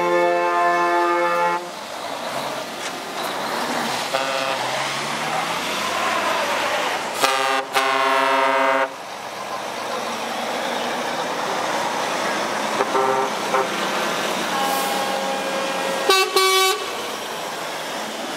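Lorries' horns sounding as tractor units drive past, over steady engine and tyre noise. One horn is held for about a second and a half at the start, a short toot follows, the longest and loudest blast comes seven to nine seconds in, and a quick run of toots sounds near the end.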